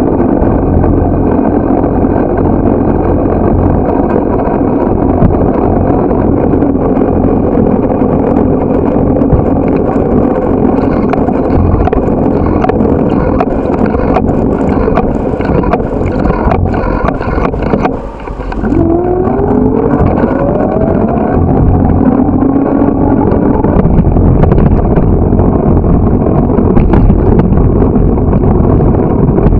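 Wind rushing over the microphone of a bicycle-mounted camera while riding, with steady road rumble. About two-thirds of the way through it drops briefly, then a rising whine comes in.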